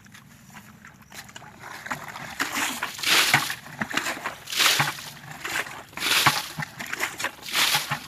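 Water sloshing and splashing in regular surges about every second and a half, louder after the first couple of seconds.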